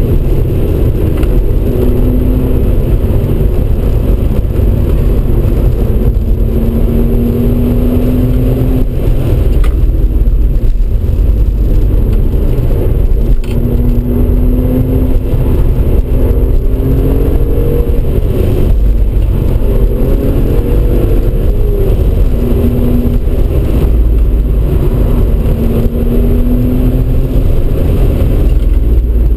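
Audi RS4 B5's 2.7-litre twin-turbo V6 pulling hard, its note climbing several times and dropping back at each gear change, heard inside the cabin over heavy road and wind noise.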